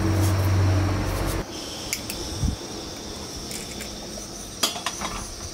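A steady humming drone that cuts off abruptly about a second and a half in, followed by scattered light clinks and knocks of dishes and utensils.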